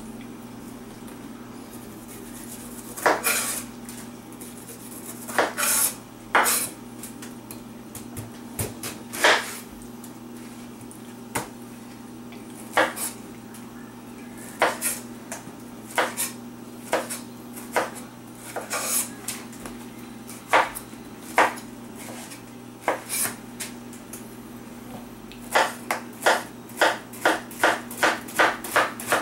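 Kitchen knife cutting through a peeled pineapple and knocking on a wooden cutting board: scattered single knocks, then a quick run of slicing strokes near the end, about two a second.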